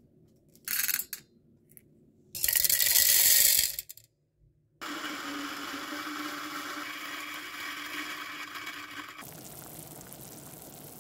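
Coffee beans rattling into a stainless steel jug, a short burst and then a longer one of about a second and a half. An electric coffee grinder then runs with a steady whir for about four seconds, grinding medium fine, and near the end a Fellow kettle gives a quieter steady hiss as the water heats toward 93 °C.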